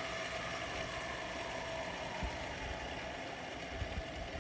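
Echo SRM-2601 two-stroke brush cutter running at idle, with its circular-saw blade spinning down. A faint tone falls slowly in pitch and fades out about halfway through.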